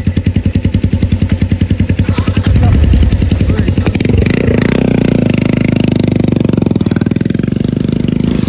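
Motorcycle engine running at low revs with an even pulse of about eight or nine beats a second. About two and a half seconds in it picks up and runs on at a steadier, higher speed.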